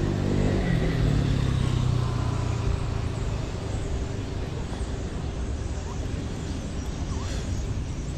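A motor vehicle's low hum, dropping in pitch during the first second and fading after about three seconds, over a steady hiss from the wet surroundings.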